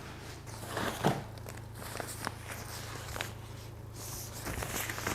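Handling noise: rustling with several light taps and knocks scattered through, as of a package being opened and handled.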